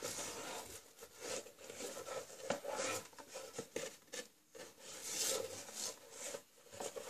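Cardboard DVD box set being handled: the folded disc case and paper insert rubbing and sliding against the cardboard box, with a few light taps and scrapes.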